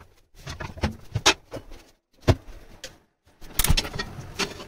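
Several short knocks and clatters of cookware being handled on a glass-topped gas stove, broken by abrupt drops to silence.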